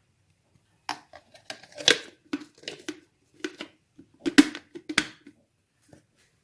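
Irregular clicks and light knocks, about a dozen over some four seconds, from lemon pieces and mint sprigs being put into a Moulinex blender jug.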